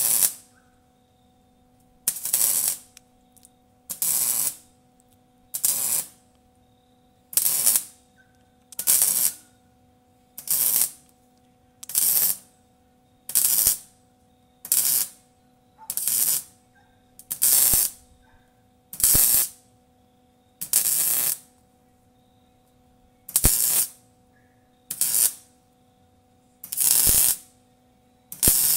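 Electric arc welder laying short welds on an exhaust pipe to close its leaks. It comes in about eighteen separate bursts of arc noise, each half a second to a second long, roughly every second and a half.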